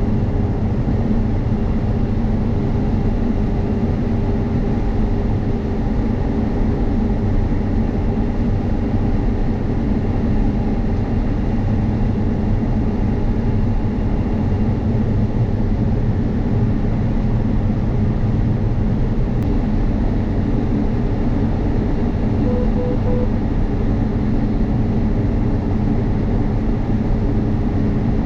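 Combine harvester running steadily under load while harvesting, an even engine and machinery drone. Three short beeps sound about two-thirds of the way through.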